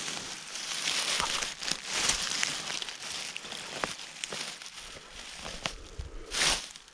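Dry leaf litter rustling and crackling under a hand as a king bolete (porcini) is worked loose and pulled from the forest floor, with small twig and leaf snaps and a louder rustle near the end.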